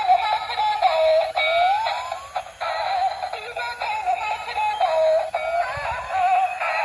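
Spider-Man toy motorcycle's built-in electronic tune playing: a thin, warbling synthesized melody with sliding notes and no bass.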